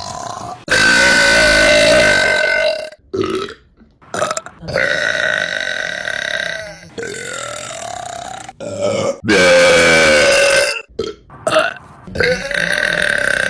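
A string of women's burps, one after another: several long, drawn-out burps of about two seconds each, with short burps in between.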